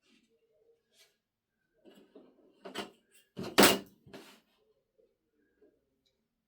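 A few short knocks and clatters, the loudest about three and a half seconds in.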